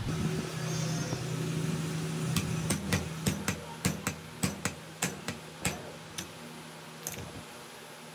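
About a dozen sharp metal taps, roughly three a second, as the bevel gear is worked onto the angle grinder's spindle, with one more tap near the end, over a steady low hum.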